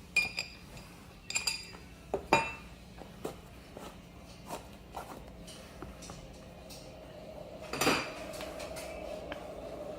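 Metal parts of a split-rim scooter wheel clinking and knocking as the rim halves, tyre and tube are pulled apart: a few sharp ringing clinks in the first few seconds and another about eight seconds in, with lighter taps between.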